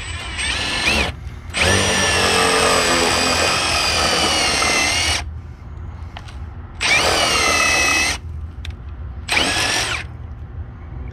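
Cordless power driver spinning a swaging bit into the end of a copper refrigerant line, expanding it so another tube can slide inside for a single brazed joint. The motor runs in four bursts, the longest about three and a half seconds, stopping between each.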